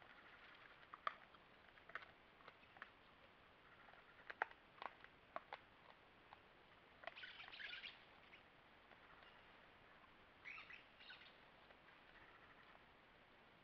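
Faint scattered sharp clicks and crunches from a collared peccary rooting and chewing corn in dry corn husks and leaf litter, with two brief bursts of rustling about seven and ten seconds in.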